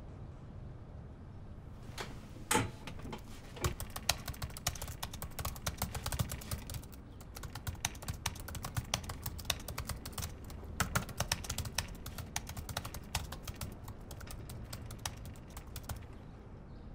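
Typing on a computer keyboard: rapid key clicks in bursts, starting about two seconds in, pausing briefly near the middle and stopping near the end, over a low steady hum.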